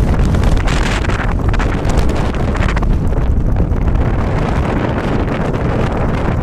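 Strong gusting storm wind buffeting the microphone: a heavy low rumble with rushing noise that swells and eases every second or two.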